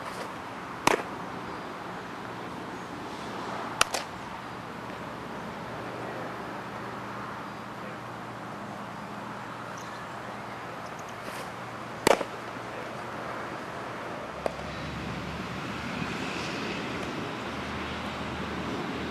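A baseball smacking into leather gloves: sharp pops about one second in, a double pop near four seconds, a loud one near twelve seconds and a fainter one soon after, over steady outdoor background noise.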